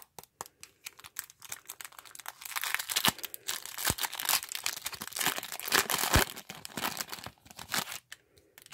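A baseball card pack's wrapper being crinkled and torn open by hand: scattered crackles at first, then a dense run of crinkling and tearing from about two seconds in that thins out near the end.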